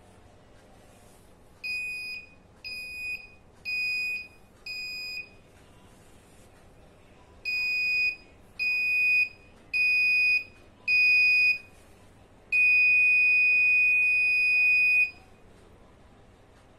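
Buzzer of an Arduino Nano proximity-alarm circuit sounding while it is tested with its ultrasonic sensors: four high beeps about a second apart, a pause, four louder beeps, then one steady tone for about two and a half seconds.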